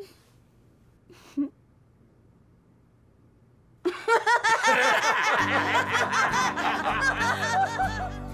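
After a quiet start with two brief short sounds, a burst of loud, hearty cartoon laughter from a young boy breaks out about four seconds in. Soft background music comes in a second or so later.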